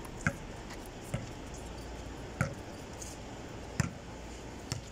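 A basketball bouncing on a concrete court: five sharp thuds about a second apart, unevenly spaced.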